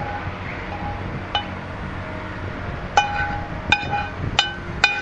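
Metal utensil clinking against a frying pan while grilled vegetables are pushed out of the pan. About five sharp, ringing clinks, most of them in the last two seconds, over a low steady background hum.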